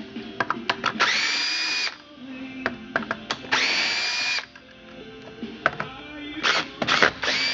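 Cordless drill-driver spinning in short runs of about a second, three times, each whine rising as it spins up and then holding steady, most likely backing out the cover screws of a vintage chainsaw. Sharp clicks and knocks of handling come between the runs.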